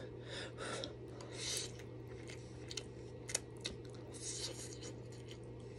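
Close-miked eating sounds: noodles slurped and chewed, soft wet mouth sounds with a few small clicks, over a steady low hum.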